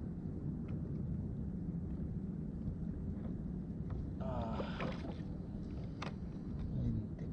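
Steady low rumble of wind and water around a small plastic kayak on open water. About four seconds in comes a short squeak with a wavering pitch, and near six seconds a single sharp knock, as a fish is handled aboard.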